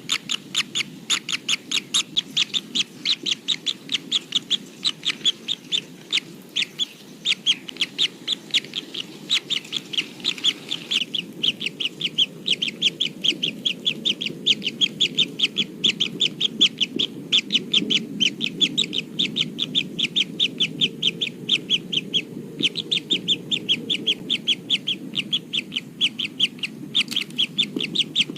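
Kingfisher nestlings giving a rapid, steady series of short high chirps, about five a second, with a few brief pauses.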